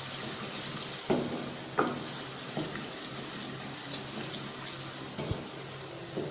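Chopped onions sizzling in hot oil in a metal pot while being stirred, the spatula scraping and knocking against the pan a few times.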